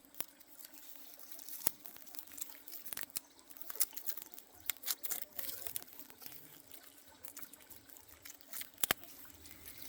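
Water splashing and dripping in irregular small clicks over a faint steady hiss, with a sharper click about two seconds in and another near the end.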